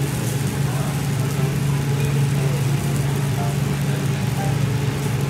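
Mackerel fillet sizzling on a wire grill over a charcoal shichirin, with faint scattered crackles, under a steady low hum.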